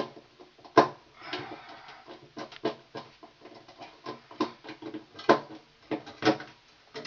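Pliers and copper wire clicking and tapping against a wall switch as the wire is squeezed into place: irregular sharp clicks, with a brief scraping rustle about a second in.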